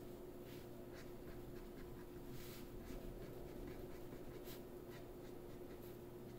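Faint, irregular strokes of a felt-tip marker drawing on paper, over a steady low hum.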